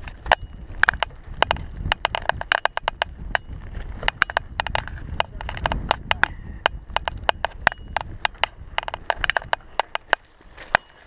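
Mountain bike rattling over a bumpy dirt trail: a rapid, irregular run of sharp clicks and knocks from the frame, chain and handlebar camera mount over a low tyre rumble, easing off near the end.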